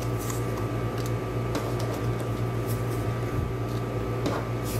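Steady low hum with a faint steady tone running under it, and a few light ticks and rustles of paper die cuts being handled.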